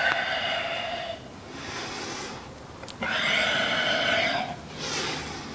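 A man's heavy, audible breathing under exertion during yoga push-up-style repetitions: two long, throaty breaths, each followed by a shorter, fainter one.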